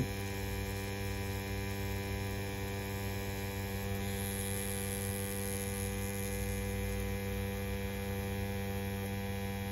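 CNC P6 rotary tattoo pen running at a 3.8 mm stroke while tattooing: a steady, even electric hum.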